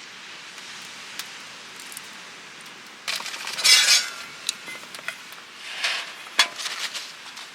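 Tableware being handled: light clinks and scrapes with a few sharp clicks, starting about three seconds in after a steady faint hiss.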